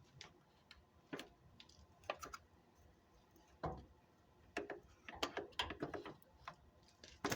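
Irregular metallic clicks and knocks from hands and tools working a steel mounting bracket on a Jeep Cherokee's front end, bending it out, with a cluster of sharper clicks in the second half.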